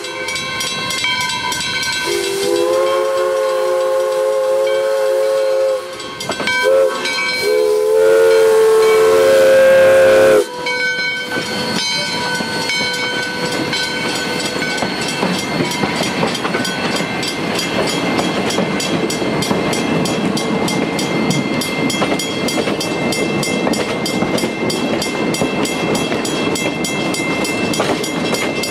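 Little River Railroad 4-6-2 Pacific steam locomotive's whistle sounding a long blast, a short one and a final long blast that cuts off about ten seconds in. Then the train's cars rumble and clatter steadily past.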